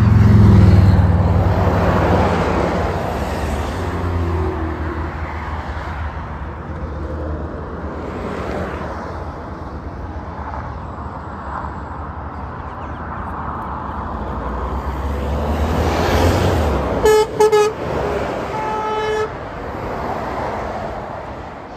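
Road traffic passing: a loud, low engine rumble of a vehicle going by at the start, fading into steady traffic noise. Near the end a heavy lorry passes close and sounds its horn, two short toots and then a longer blast.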